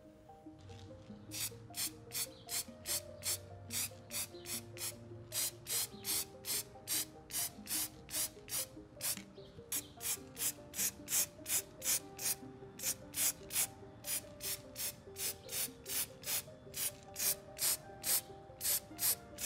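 Spray-paint can hissing in short, quick bursts, about two or three a second, as small scale-model body parts are coated. Soft background music plays underneath.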